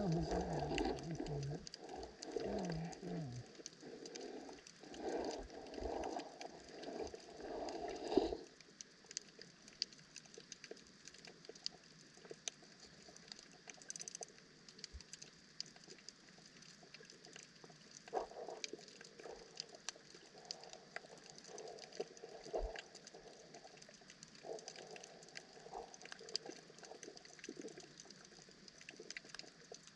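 Underwater ambience picked up by a camera in its waterproof housing. For the first eight seconds there is muffled low water movement, with a muffled pitched sound in the first three or four seconds. After that it drops to a quieter bed of scattered faint clicks and crackles with occasional soft muffled swells.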